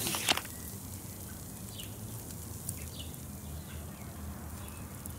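Outdoor ambience: a short burst of noise in the first half second, then a steady low hum with a few faint high chirps.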